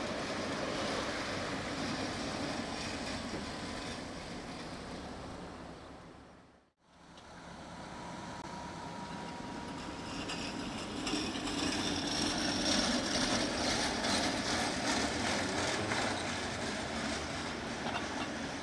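Tatra T4D trams running past on street track, a steady mechanical rumble of wheels and motors with some road traffic. The sound fades out and back in about seven seconds in, then grows louder from about eleven seconds.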